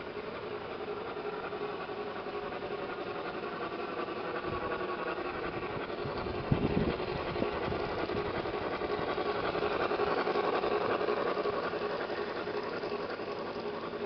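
Gauge 1 model train, a Märklin DB class 01 steam locomotive with its coaches, running along the track: a steady motor and wheel hum that grows louder as the train comes near, then eases off toward the end. A brief cluster of knocks about six and a half seconds in.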